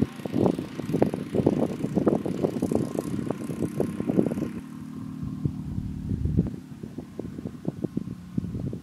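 Motorcycle engine running as the bike rides along a dirt road, with wind buffeting the microphone over the first half; from about halfway a steady engine hum is heard on its own, fading as the bike moves away.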